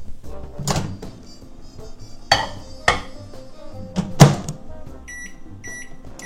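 A few sharp knocks and clatters, then three short electronic beeps about half a second apart near the end.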